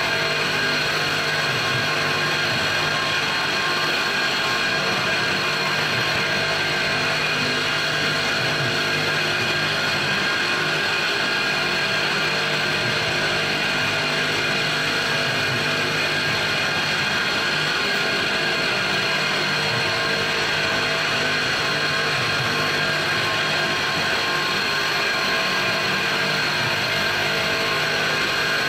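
PM-727M CNC-converted mill cutting an aluminium block, its end mill working around a round bore under coolant. The sound is a steady, even machining noise with several high whining tones that holds without a break.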